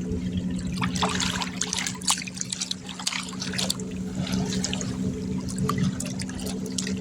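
Water splashing and trickling in irregular bursts, over a steady low hum.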